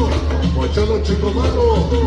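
Loud cumbia dance music played through a sonidero's large sound system, with a heavy, constant bass.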